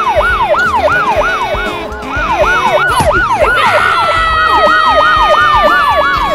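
Police-style siren on a fast yelp, its pitch sweeping up and down about three times a second without a break.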